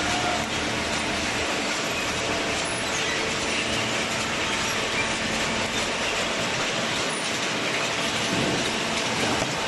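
Horizontal hydraulic carton baler running: a steady, even mechanical noise with faint clatter.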